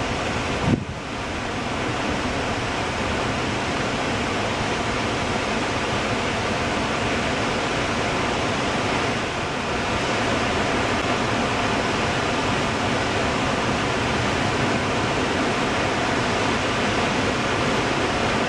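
Water discharging from a dam's open spillway gates and pouring down the concrete spillway face, a steady heavy rush of falling water. A brief thump about a second in.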